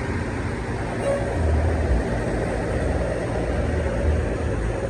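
Large diesel bus engine idling, a steady low rumble.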